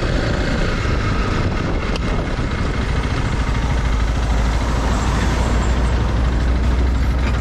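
A loaded logging truck passing close by, its heavy low rumble swelling in the second half, over the steady running of a Honda CRF300L Rally dual-sport motorcycle's single-cylinder engine.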